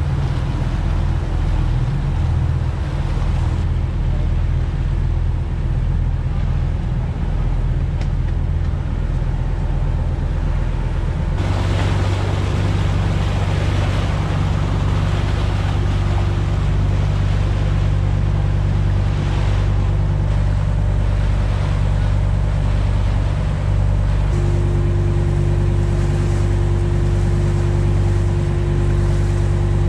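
Procharter P4 forty-foot charter boat under way: its engine running with a steady low hum, and water rushing and splashing along the hull. About eleven seconds in, the engine note deepens and the water noise grows louder as the boat picks up way.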